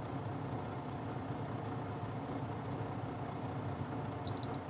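Diesel engine of a Freightliner-chassis motorhome idling steadily, heard inside the cab. Near the end, the Meritor Wabco collision mitigation display gives short high beeps, the start of its forward-collision warning in demo mode.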